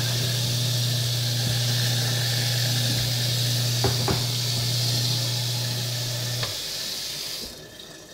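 Kitchen tap running water into a sink, a steady hiss with a low hum beneath it and a couple of small clinks near the middle. The hum drops out, then the water stops near the end.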